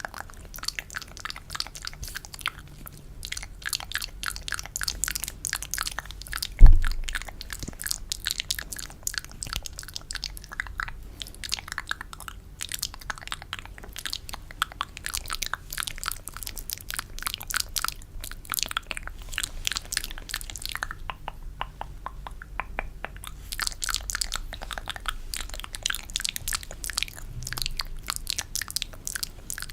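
Close-miked ASMR mouth sounds: a dense, rapid stream of wet, sticky clicks and smacks, as in spit painting. One low thump about seven seconds in.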